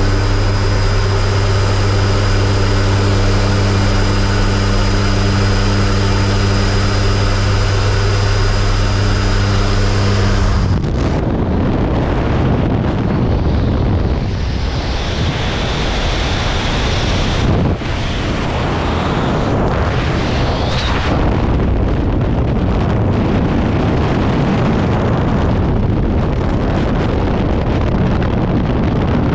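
Jump plane's engines and propellers droning steadily at the open jump door, with a thin high whine over the rush of air. After about eleven seconds the drone cuts off and a steady rush of wind buffets the microphone, the airflow of exit and freefall.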